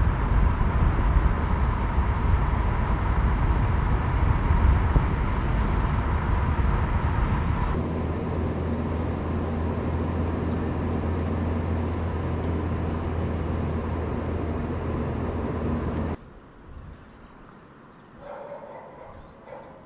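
A car cruising on a highway, heard from inside the cabin: a steady rush of road and engine noise that changes about eight seconds in to a lower, even drone. About sixteen seconds in it cuts to much quieter outdoor ambience, with a dog barking faintly near the end.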